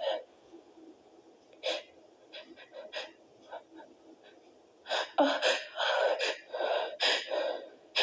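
A woman's stifled sneezes with sharp gasping breaths: one short burst at the start and another about two seconds in, then a quick run of several from about five seconds in.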